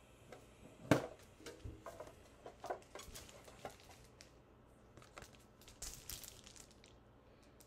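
Packaging from a Pokémon card tin being handled: plastic crinkling and tearing, with irregular clicks and taps. The loudest click comes about a second in.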